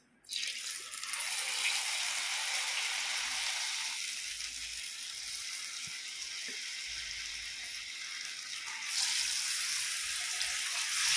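Hot oil sizzling in a frying pan as masala-coated elephant yam slices are dropped in to deep-fry: a hiss that starts suddenly just after the start and grows louder again near the end as more slices go in.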